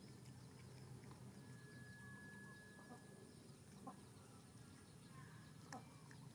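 Faint, quiet clucking of domestic chickens, with a thin steady high tone that starts about a second and a half in and lasts about two seconds.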